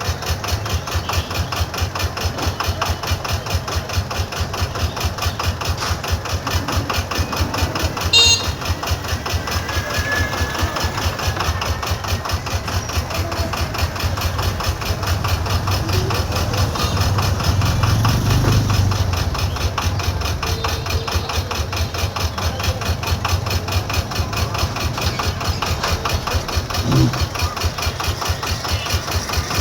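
An engine idling steadily with a fast, even beat, with a sharp click about eight seconds in.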